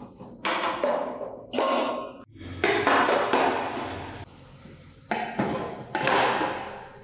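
Rusty sheet-steel motorcycle body parts set down one after another in an empty glass tank: a run of about seven clunks and knocks of metal against glass and metal, each dying away quickly.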